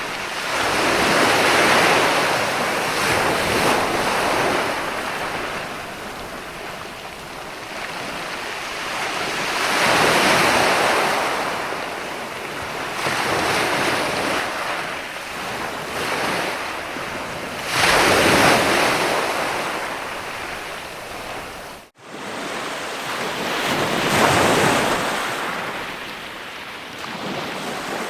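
Ocean surf, waves breaking and washing in about every 6 to 8 seconds, each swell rising and then fading back to a steady hiss. About 22 seconds in, the sound cuts out for a split second.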